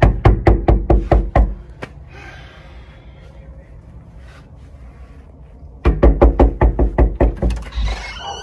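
Knuckles knocking fast on a panelled front door, about five knocks a second. The first run stops about two seconds in, and a second run of about ten knocks starts about six seconds in.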